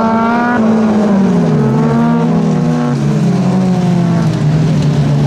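Several small race-car engines running hard at high revs, the pitch dropping sharply about half a second in and then sliding down and climbing again a few times as the drivers lift, shift and get back on the throttle, with more than one engine note heard at once.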